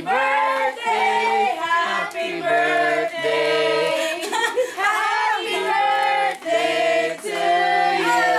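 Singing: a voice holding sustained notes that step up and down in pitch, with no clear beat under it.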